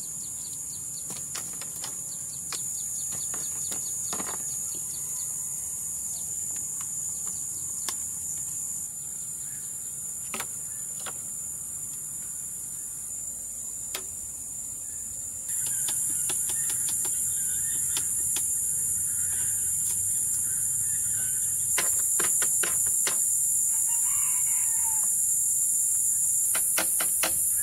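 Steady shrill drone of insects, which grows louder about halfway through, over scattered knocks and clatter of bamboo poles being handled, with quick runs of clicks near the end. A rooster crows briefly about two thirds of the way in.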